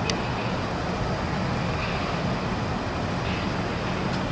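Steady outdoor background noise: an even low rumble with a hiss above it, and no distinct events.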